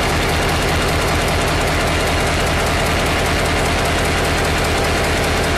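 Locomotive diesel engine running steadily after being started, heard from inside the locomotive: a loud, even low drone with a broad rumble above it.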